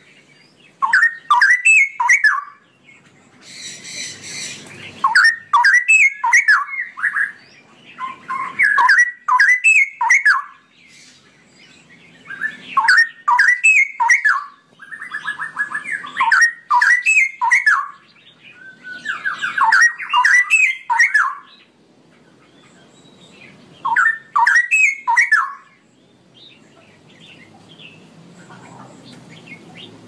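Straw-headed bulbul (cucak rowo) singing its loud, rich, fast-warbling song in repeated phrases of one to three seconds, with short pauses between them.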